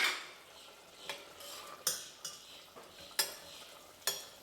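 A spoon stirring and scraping cooked green bean curry around a pan in a series of short, irregular strokes, over a faint steady hiss from the hot pan.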